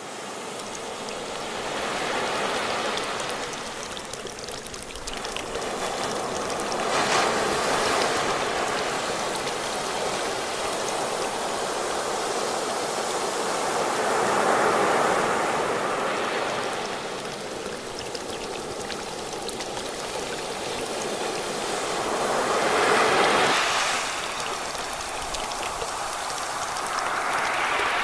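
Ocean waves washing ashore: a steady hiss of surf that swells and ebbs, with about five surges a few seconds apart, the loudest near the middle and about two-thirds of the way through.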